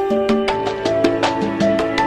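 Background music: plucked melodic notes over a quick, even percussion beat.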